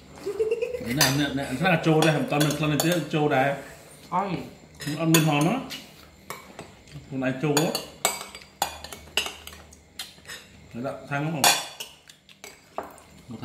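Metal spoons and forks clinking and scraping on ceramic plates during a meal, many sharp clinks scattered throughout. A few short low voice-like sounds come between them, the longest in the first few seconds.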